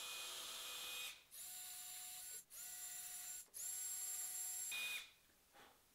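Cordless drill boring holes into a cherry board with a depth-stopped bit, in four short runs. The motor whine cuts out about a second in, then spins up and stops three more times, the last run ending about five seconds in.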